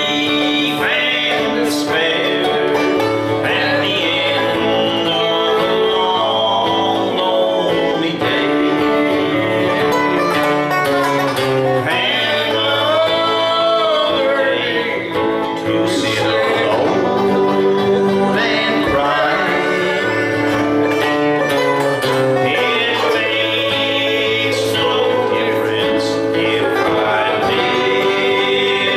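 Acoustic guitar strumming and banjo picking together in a country song, with a voice singing along at times.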